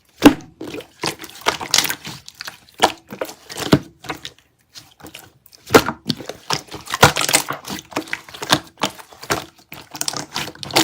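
Slime being squeezed and pressed by hand: many sharp, sticky clicks and pops, coming in irregular crackly bursts.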